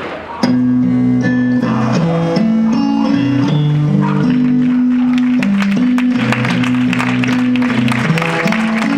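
Music starting about half a second in: a steady line of held low notes that step from pitch to pitch every half second or so, with lighter higher notes over them.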